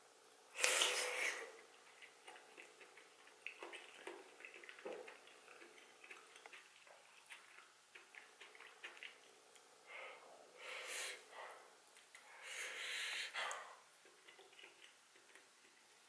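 Close-miked eating: a loud slurp about half a second in as a soup-soaked cabbage leaf goes into the mouth, then soft wet chewing clicks. Near the end come two longer breathy sounds through the nose.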